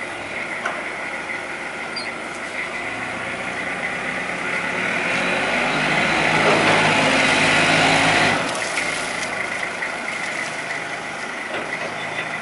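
Yale diesel forklift's engine running as the truck manoeuvres. The revs build over a few seconds to a louder peak, then drop back suddenly about eight seconds in to a lower, steady run.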